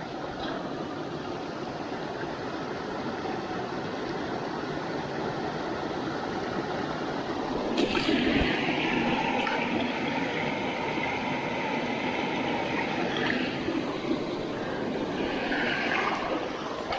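Mountain stream water rushing and gurgling steadily. About eight seconds in there is a brief knock, and the rush grows louder and brighter.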